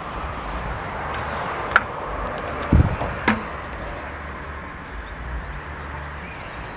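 Rustling of clothing and handling noise on a clip-on lapel microphone as the wearer moves, with a few sharp clicks and one dull thump about three seconds in.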